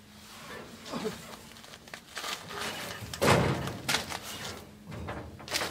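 Scuffing, rustling and bumping as a man clambers out through the door opening of a bare steel car body braced with square tubing. The noises come irregularly, with a louder bump about three seconds in.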